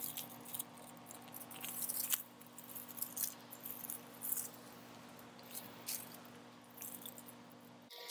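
Dry, dying garlic stalks and leaves rustling and crackling in irregular scratchy bursts as garlic plants are grasped and handled, over a faint steady low hum.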